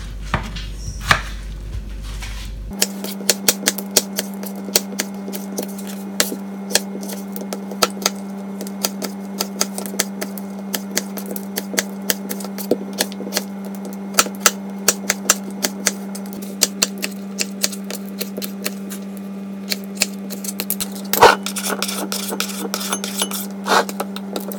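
Kitchen knife chopping tomatoes on a plastic cutting board: a run of sharp knocks as the blade strikes the board, a few a second, with one louder knock near the end. A steady low hum runs under the chopping from a few seconds in.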